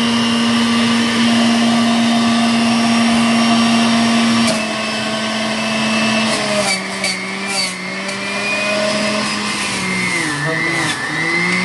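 Electric juicer motor running with a steady whine as juice pours from its spout. Its pitch steps down a little about four and a half seconds in and again two seconds later, then wobbles near the end, with scattered clicks and rattles.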